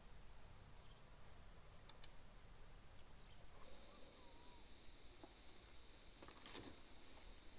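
Faint, steady high-pitched chirring of insects, with a few faint clicks about two-thirds of the way in.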